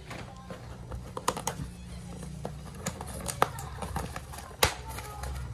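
Hands handling a cardboard parcel box: irregular clicks, taps and light rustles of fingers on cardboard and packaging, with a few sharper clicks.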